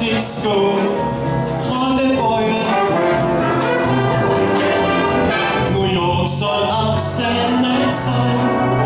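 Big band playing an instrumental passage, with its brass section of trumpets and trombones to the fore.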